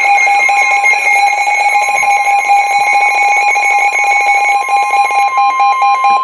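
Weather radio's electronic alert alarm sounding, a loud, rapidly pulsing beep of several tones, marking an incoming severe weather warning. The steady 1050 Hz NOAA Weather Radio warning tone runs faintly beneath it and takes over near the end.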